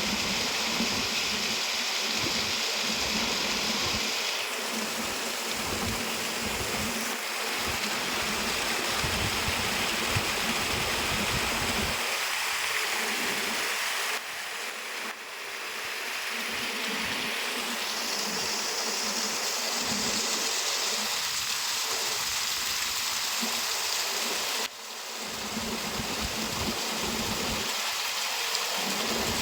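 Waterfall, water rushing and splashing steadily. The level drops briefly and recovers twice, near the middle and again about 25 seconds in.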